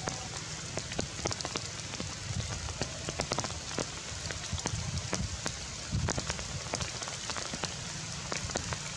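Steady rain falling on forest leaves, with many separate drops ticking sharply over a low rumble.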